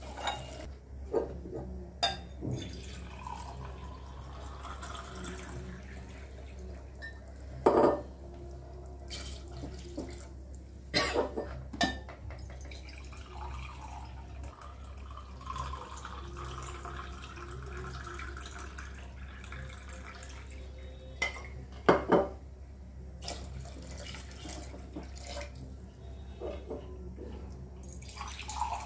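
Water being poured from a jug into an aluminium pressure cooker of browned chicken masala, with several sharp clinks of the jug and steel ladle against the pot, the loudest near the 22-second mark.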